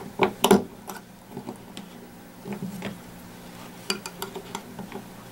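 Scattered small metallic clicks and ticks from a steel punch working the trigger pin retainer spring down inside a Ruger Mark IV pistol frame. The spring is being compressed so the trigger pin can be pushed in over it. There is a cluster of clicks near the start and another around four seconds in.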